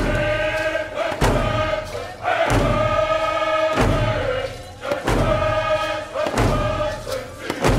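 Voices chanting long held notes, with a deep drum beat about every 1.3 seconds, seven beats in all.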